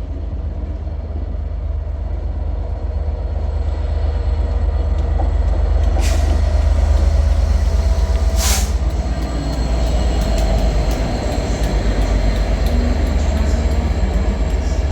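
Diesel train running at the station platform: a heavy, steady low rumble that grows louder about four seconds in, with two short hisses of air, about six and eight and a half seconds in.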